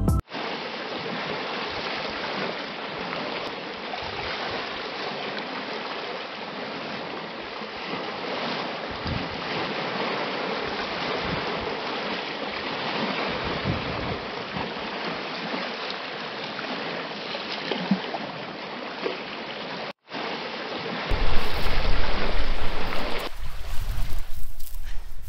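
A steady rush of water with no distinct pitch, broken once by a brief dropout. Near the end wind buffets the microphone with a deep rumble.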